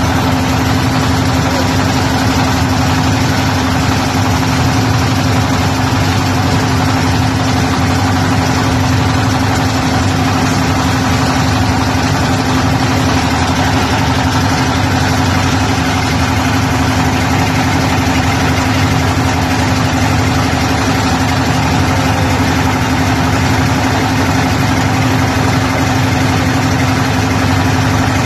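A motorboat's engine running steadily at a constant speed, a loud even drone with a steady humming note.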